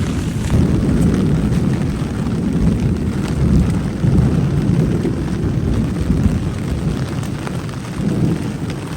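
Wind buffeting a phone's microphone in a rainstorm: a loud, dense, uneven low rumble that swells and eases.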